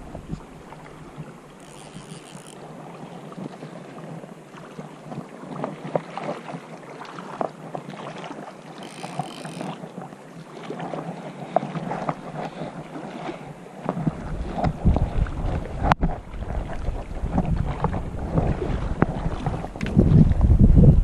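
Rushing river water, with wind buffeting the microphone in the second half and a sharp click about two-thirds of the way through.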